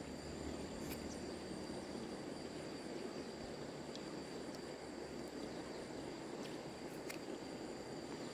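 Steady rushing of stream water, an even noise with a thin, steady high whine above it.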